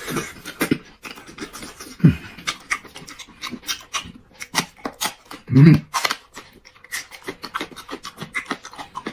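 Close-miked eating sounds of a man chewing crab and a green chili pepper: wet chewing, lip smacks and mouth clicks throughout. A short falling vocal grunt comes about two seconds in, and a louder low hum of the kind an eater makes with his mouth full comes about halfway through.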